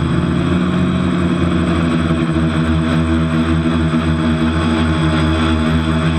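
TBS Discovery quadcopter's electric motors and propellers buzzing in flight, heard close up from the camera on the frame, holding a fairly steady pitch with small surges. The uploader says it is flying on a dodgy propeller.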